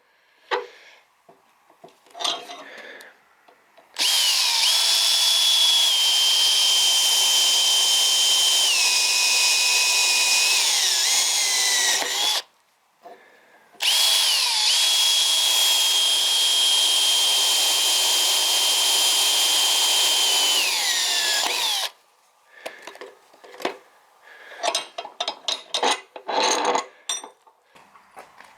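Electric power tool, like a drill, run twice for about eight seconds each, its high whine sagging in pitch under load and winding down as it is switched off. Short knocks and clatter of metal being handled come before and after.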